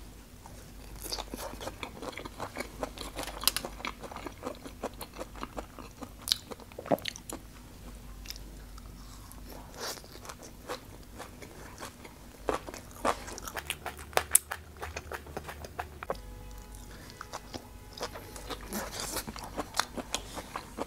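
Close-miked biting and chewing of grilled okra pulled off a bamboo skewer: a steady string of sharp bite and chew clicks. Some of the okra is tougher than the soft, slimy texture it should have; the eater finds one skewer too old.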